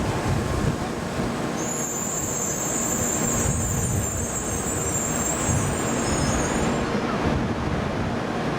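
Shinkansen N700A train rumbling slowly past, with a high thin whine over the rumble from about two seconds in until about seven seconds.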